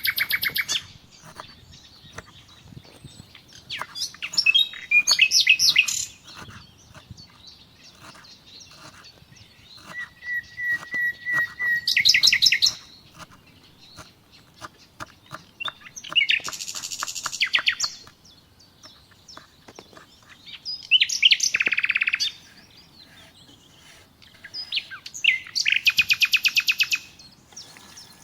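Songbirds singing: high, fast trills and chirping phrases of a second or two each, coming every few seconds with quieter pauses between.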